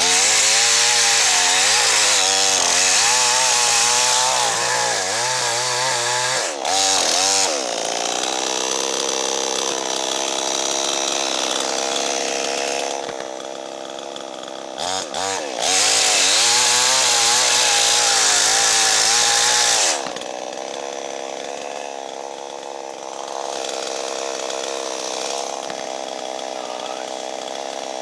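Two-stroke chainsaw running at full throttle in a cut through dead standing ash, its pitch wavering under load. It throttles back briefly a couple of times, then drops to idle about twenty seconds in.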